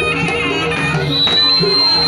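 Live East Javanese jaranan music: a shrill reed pipe (slompret) plays a melody and, about a second in, settles on one long held high note, over a steady beat of drums.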